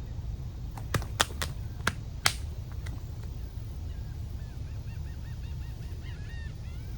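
Steady low rumble, with a handful of sharp clicks or knocks about a second in. In the second half a bird calls rapidly in short, repeated chirping notes.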